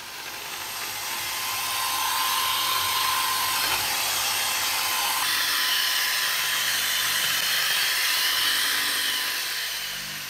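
Small high-speed rotary power tool running steadily on rusty steel, a dense whirring with a thin whine, while rust is taken off the pistol. It fades in over the first couple of seconds and fades out near the end.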